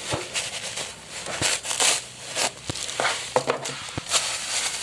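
Packaging being unwrapped by hand: irregular crinkling and rustling with scattered sharp clicks.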